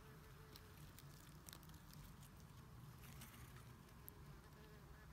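Near silence in woodland, with faint scattered crackles of footsteps on the forest floor.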